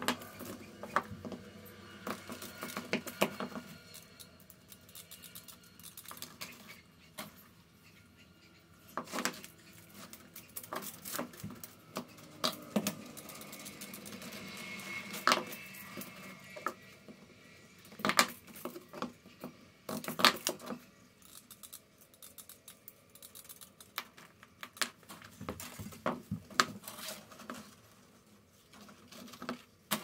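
Galvanized wire mesh (hardware cloth) being handled and cut with tin snips: irregular snips, clicks and metallic rattles of the mesh.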